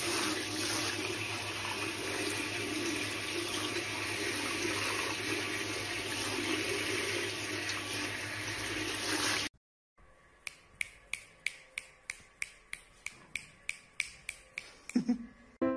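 Shower-head spray hissing steadily onto a wet cat and the shower floor. It cuts off abruptly about nine and a half seconds in. After a short silence comes a regular run of sharp clicks, about three or four a second.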